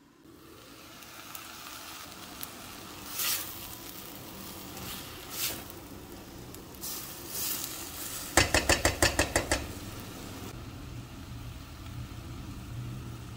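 Chopped leeks, carrot and potato sizzling in olive oil in a stainless steel pot, with a silicone spatula scraping through them as they are stirred. About eight seconds in comes a quick run of about ten sharp taps, the loudest sounds.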